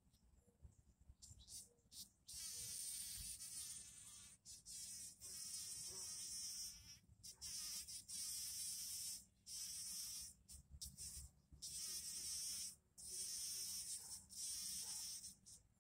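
Bumblebee buzzing in stop-start bursts of half a second to two seconds as it works the centre of a rose blossom, a thin, high buzz with short gaps between bursts.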